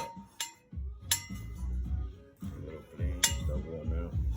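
Metal tools or jack hardware clinking, with several sharp, ringing strikes and dull low thumps between them.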